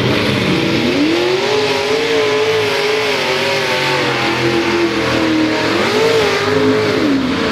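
Multi-engine modified pulling tractor revving hard under load as it pulls the sled. The engine pitch climbs about a second in and holds, sags midway, rises again, then falls away near the end.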